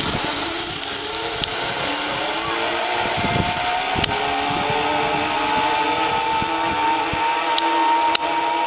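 Zip line trolley running down the steel cable: a steady whine of several tones that rises slowly in pitch, then holds, over a rushing hiss.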